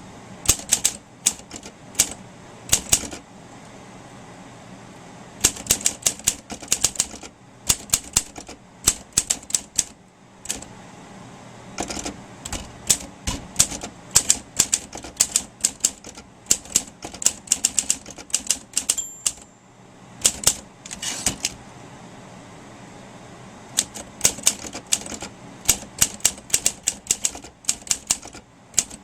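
Olympia SM3 Deluxe manual typewriter being typed on: runs of quick, sharp key strikes in bursts, broken by short pauses. About two-thirds of the way through, a single short ring comes from the margin bell.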